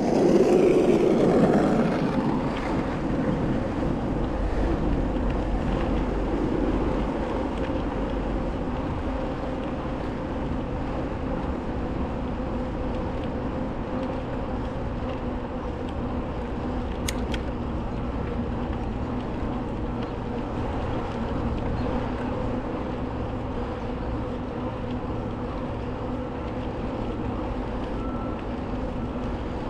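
Steady rolling noise of a bicycle ride along a rail trail, a little louder in the first couple of seconds, with one brief click about 17 seconds in.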